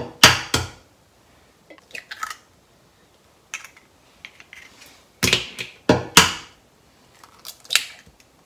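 Eggs knocked against a stainless steel mixing bowl and cracked open: a pair of sharp knocks near the start, a group of three about five to six seconds in, with softer taps and cracks of shell in between.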